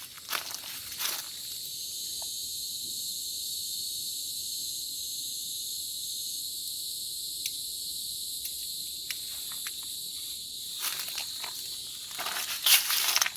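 Steady chorus of insects in the forest, a high buzzing made of several level tones. Footsteps on the trail are heard in the first second and again from near the end, with only the insects in between.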